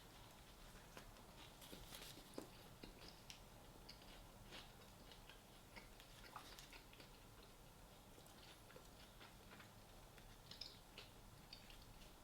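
Near silence with faint, irregular small clicks of a person chewing and eating quietly.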